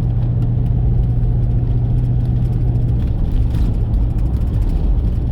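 Car engine and road noise heard from inside the cabin while driving at a steady speed: a steady low hum with rumble.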